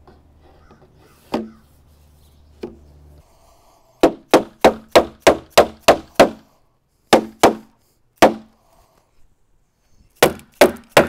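A mallet striking the plastic sections of a pool step to knock them together: two single knocks, then a quick run of about eight blows, three more, and another rapid run near the end.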